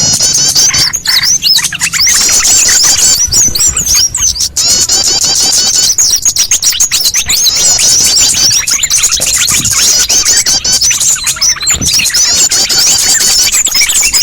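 A dense chorus of many small songbirds chirping and twittering at once: a small-bird lure recording (pikat burung kecil). The high-pitched calls overlap without a break.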